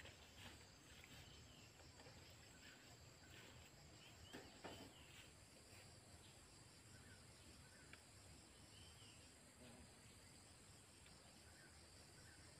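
Near-silent field ambience: a steady, faint insect drone, with a few faint, scattered bird chirps and a couple of soft knocks about four and a half seconds in.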